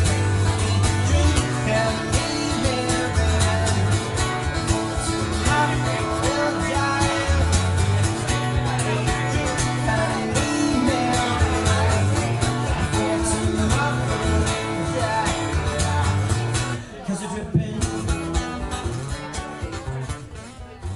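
Music with acoustic guitar and singing, steady until it drops back about seventeen seconds in and fades away near the end.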